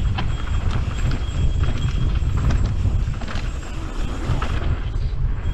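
Canyon Strive enduro mountain bike riding fast down a rocky dirt trail: tyres crunching over gravel and the bike clattering and ticking irregularly over bumps, under a heavy wind rumble on the camera microphone.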